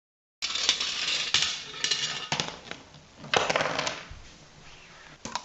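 Small hard objects clattering and rattling in four or five loud bursts, with sharp clicks, trailing off to a few faint clicks near the end.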